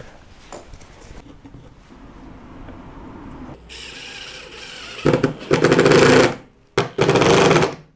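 Cordless impact driver driving wood screws through a scrap block into a 2x4: the motor spins up, then two bursts of rapid hammering about a second each, with a brief pause between them as the screws seat.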